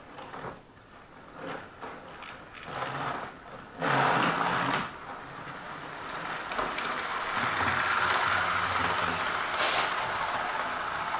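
Clicks and knocks of model trains being handled on the track, a louder rattle about four seconds in, then a model train running along sectional track: a steady whirr of its small electric motor and wheels from about five seconds in.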